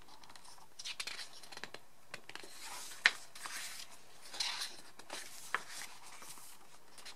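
Pages of a glossy photobook being turned by hand: soft paper swishes and light taps, with a sharper tap about three seconds in.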